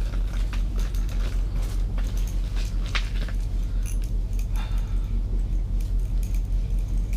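A low mechanical hum pulsing about three times a second, with scattered light clicks and rattles over it.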